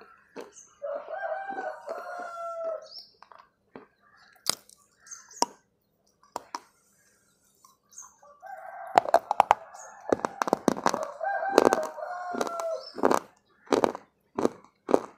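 Close crunching and chewing of a snack bar, in sharp clicks, with a rooster crowing about a second in and again from about nine seconds in.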